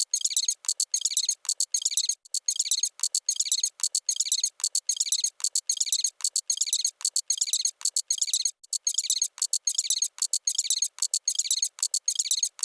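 A spoken phrase sped up so far that it has become a rapid train of high-pitched chirps, about two a second, with short breaks about 2 and 8.5 seconds in.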